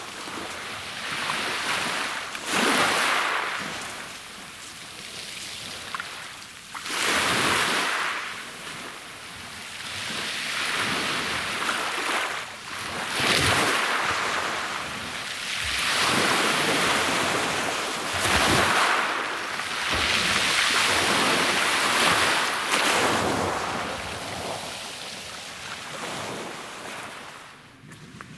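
Small sea waves breaking on a pebble beach and washing back over the stones, the hiss swelling and easing in surges every few seconds.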